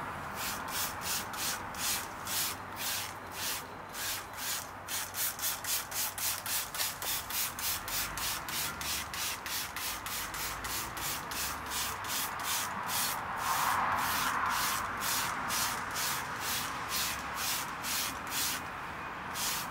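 Trigger spray bottle squirted over and over, spraying foaming cleaner onto a car tyre and wheel in a quick hissy run of about three squirts a second.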